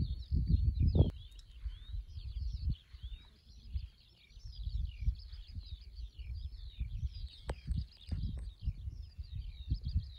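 Small songbirds singing and chirping all at once, a dense, busy chorus of high twitters and trills. Under it runs an irregular low rumble with soft bumps, and a single sharp click comes about seven and a half seconds in.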